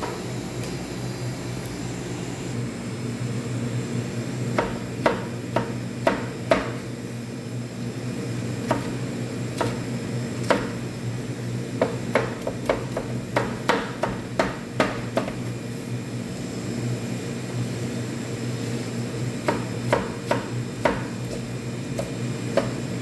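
Knife chopping capsicum into cubes on a cutting board: sharp taps in short irregular runs, over a steady low hum.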